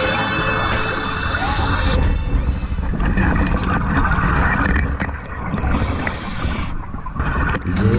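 A song's final notes fade out in the first two seconds, leaving muffled underwater sound from a scuba dive: a steady low rush of a diver's regulator breathing and bubbles, with a sharper hiss about six seconds in.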